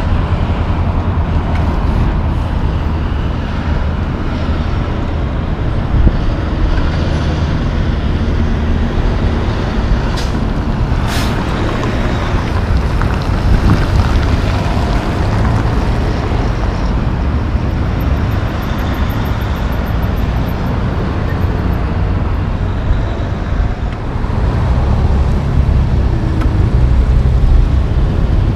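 City road traffic: diesel semi trucks and cars driving past, their engines giving a steady low drone over tyre noise. Two short, sharp sounds cut through a little before and after the middle.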